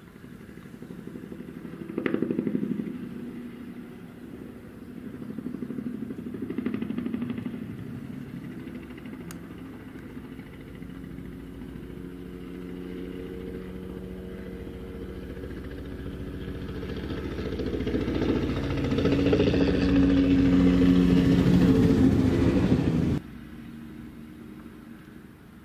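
Spray helicopter flying low passes, its rotor beat and engine swelling and fading as it comes near and goes away. The sound builds to its loudest near the end, then drops away suddenly.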